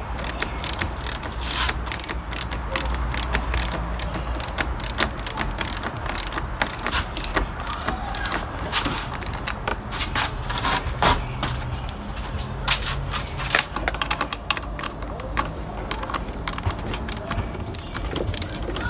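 Socket ratchet clicking in short, uneven runs as a battery terminal clamp nut is tightened down onto the post.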